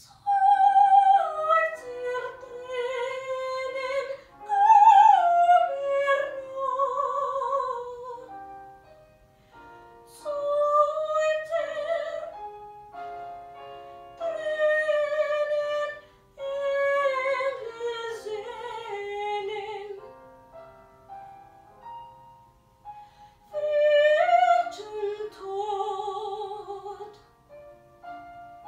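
A woman singing in a classical operatic style with a wide vibrato, accompanied by a piano. She sings several phrases, and the piano carries on alone in the short gaps between them.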